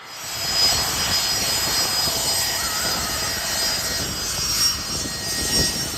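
Twin jet engines of a small rear-engined jet airliner running steadily, a high whine of several steady tones over a rumbling roar.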